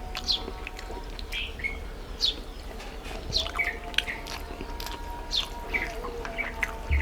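Small birds chirping: short, high chirps that fall steeply in pitch, repeated about once a second, over a steady background hum.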